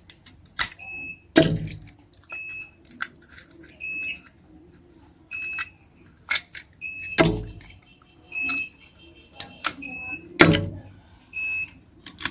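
Short, high electronic beeps repeating about once a second, like a piezo alarm or appliance beeper, with a few loud knocks in between.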